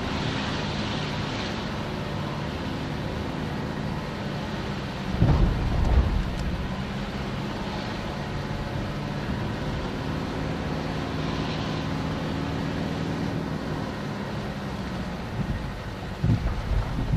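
Mitsubishi Pajero engine running at steady low revs as the 4x4 is driven off-road, with a couple of short low thuds about five seconds in and again near the end.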